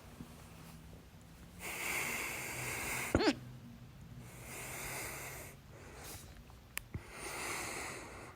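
A person with hiccups breathing audibly in and out, with one sharp hiccup about three seconds in, the loudest sound here, and a short click near the end.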